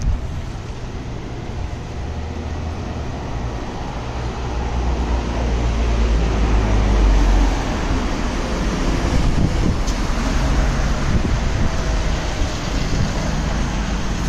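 Wind noise on the microphone over a steady low engine rumble, which grows louder about five seconds in.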